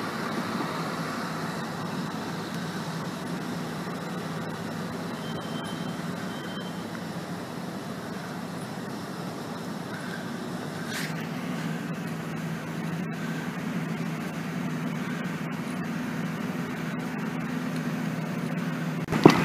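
An engine running steadily with a low hum, with two short high beeps about five and a half and six and a half seconds in.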